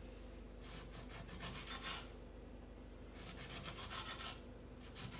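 Kitchen knife slicing a lemon into rounds on a wooden cutting board: three short runs of quick cutting strokes, each a rapid series of taps and scrapes against the board.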